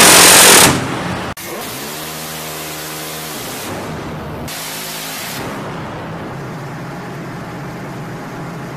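Phalanx CIWS's six-barrel 20 mm Gatling cannon firing one continuous burst, a loud unbroken 'zip' that stops less than a second in. After that comes a much quieter steady hum, with a pitched whine that bends and then holds for a couple of seconds.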